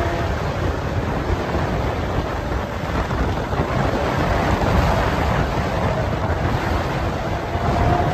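Steady wind rush on the microphone and road noise from riding along at speed, with the Lamborghini Aventador S's V12 faintly heard ahead, its note rising slightly near the end.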